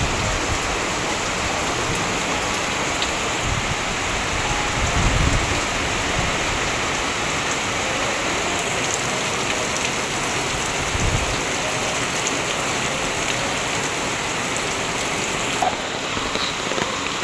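Heavy typhoon rain pouring down steadily, a continuous hiss of rain on surfaces.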